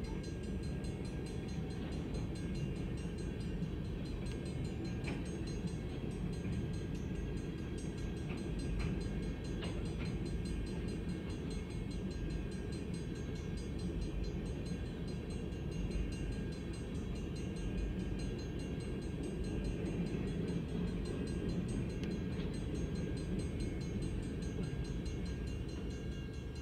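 Freight train cars rolling past at a road crossing: a steady low rumble with a few brief clacks, heard from inside a stopped car.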